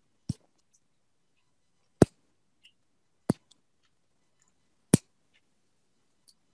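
Four sharp, single clicks, each about one and a half seconds from the next, with silence between them.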